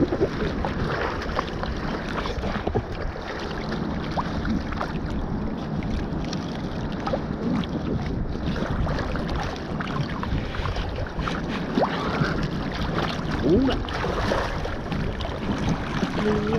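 Small sea waves lapping and splashing close to a camera riding at the water's surface, with wind on the microphone; a steady wash broken by scattered short splashes.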